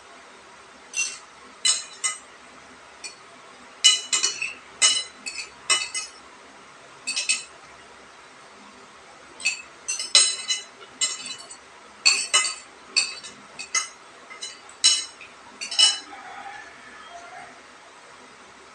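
Eating utensils clinking against dishes during a meal: about two dozen short, ringing clinks, irregular and often in quick pairs, with a pause of over a second midway.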